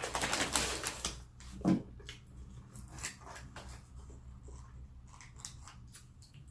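Takeout food and its packaging being handled: rustling at first, a short low thump about 1.7 seconds in, then scattered small clicks and crinkles.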